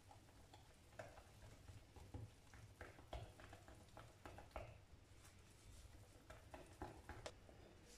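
Whisk stirring thick cake batter in a glass bowl, faint and irregular: soft wet stirring with quick clicks and scrapes of the whisk against the bowl.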